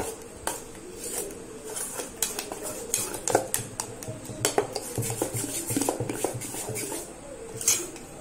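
A steel spoon stirs thick appam batter in a stainless steel bowl, clinking and scraping against the metal with irregular strokes, while cooked rice porridge is mixed into the ground rice-and-coconut batter.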